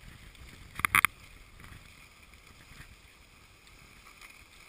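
Skis sliding over snow with wind on the microphone, a steady low hiss, broken about a second in by a quick cluster of sharp clicks.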